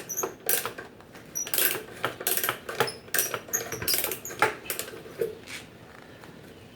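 Old ratcheting hand brace clicking irregularly as its wood bit is turned in reverse and backed out of a hole in a log, with a few short high squeaks; the clicking stops a little past five seconds in.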